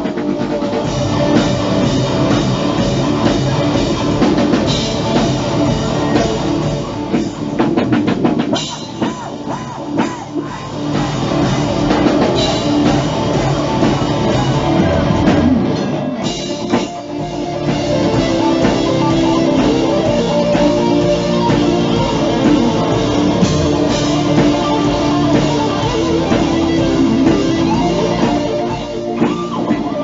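Live heavy rock band playing an instrumental passage: electric guitar lead with bent, wavering notes over drum kit and bass.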